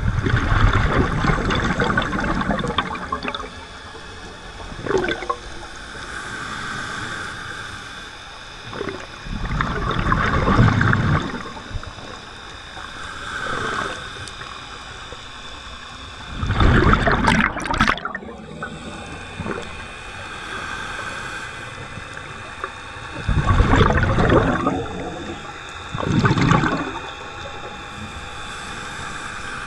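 Water sloshing and bubbling, heard muffled through an underwater camera housing, in surges a few seconds apart over a steady low hiss.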